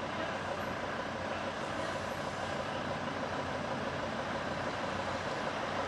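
Truck engine running steadily at low speed while it tows a long trailer, a constant drone with a steady hum and no sudden changes.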